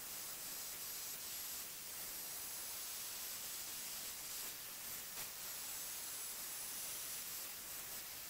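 Faint steady hiss with a thin, high-pitched whine over it: background noise, with no machine at work.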